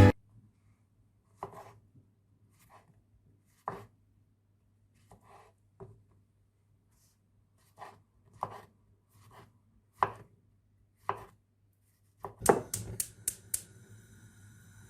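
Knife knocking on a cutting board: scattered single cuts a second or two apart, then a quick run of five or six chops near the end. A faint steady hum lies underneath.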